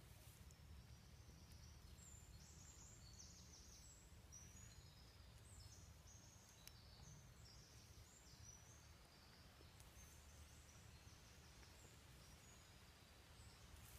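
Near silence: faint outdoor field ambience with a steady low rumble and faint, short high-pitched chirps scattered throughout.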